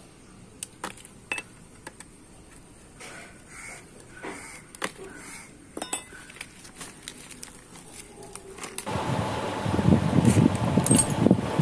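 Scattered metallic clinks and taps of a wrench and loosened nuts against the steel casing of a Bajaj auto rickshaw two-stroke engine as the shifter cover is unbolted and lifted off. About nine seconds in, a loud steady rushing noise sets in.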